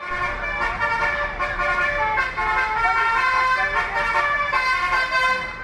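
Indonesian tour bus 'telolet' multi-tone air horn playing a melody, several horn notes sounding together and stepping to new pitches every fraction of a second.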